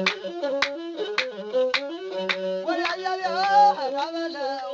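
Ethiopian azmari music: a masinko, the one-string bowed fiddle, playing a melody over a steady drum beat of about two beats a second. The beat drops out about halfway through while the melody rises and falls.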